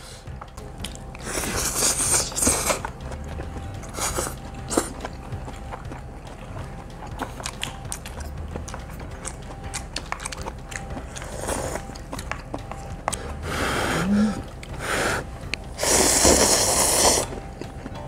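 Close-up eating sounds: chewing, with several loud slurps of instant cup ramen noodles and broth. The longest and loudest slurp comes near the end.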